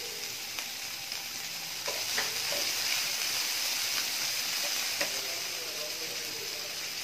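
Boiled soya chunks sizzling in oil in a non-stick frying pan, with a steady hiss, while being stirred with a wooden spatula, which adds a few light scrapes and knocks.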